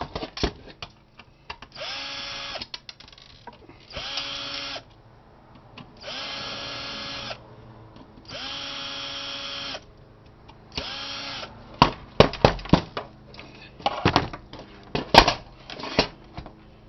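Cordless drill-driver backing screws out of a computer power supply's metal case in five short runs, each whine winding up and then down. After that, sharp knocks and clatter as the metal case and loose parts are handled.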